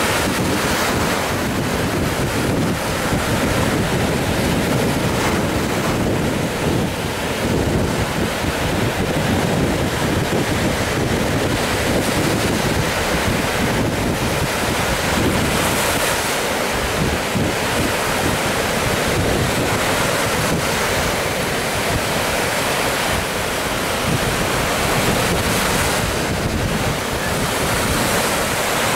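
Small surf waves breaking steadily onto the shore, with wind buffeting the microphone.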